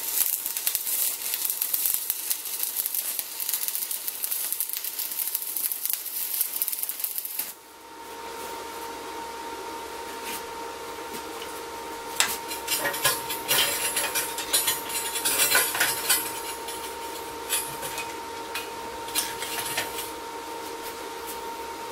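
A stick-welding arc crackles and sizzles for about seven and a half seconds as angle-iron feet are tacked onto a steel pipe, then cuts off suddenly. A steady hum follows, with light metallic clicks and rattles as the electrode holder and rod are handled.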